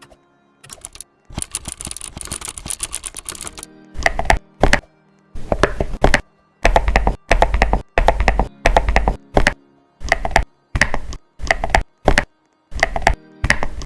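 Computer keyboard being typed on: a run of fast, crisp key clicks for about three seconds, then from about four seconds in, short bursts of deeper, thockier key presses at a steady pace of a little over one a second. Soft background music plays underneath.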